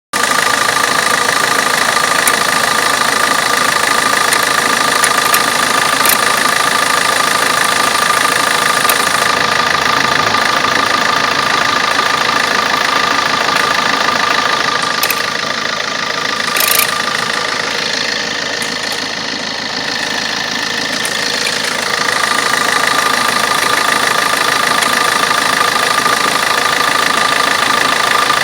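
Vauxhall Corsa D 1.3 CDTi four-cylinder turbodiesel idling steadily, with a weird clicking noise running through it. A brief sharp sound stands out just past halfway.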